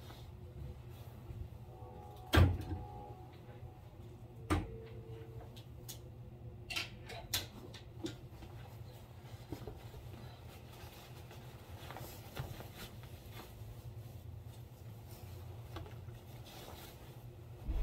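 A wardrobe door and its contents being handled: a few knocks and clicks, the loudest about two and a half seconds in with a short ringing after it, then softer rustling, over a steady low hum.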